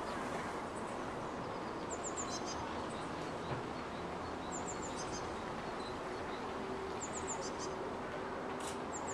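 Steady hum of distant city noise, with a small bird's quick, high chirps, a few notes at a time, repeating about every two and a half seconds.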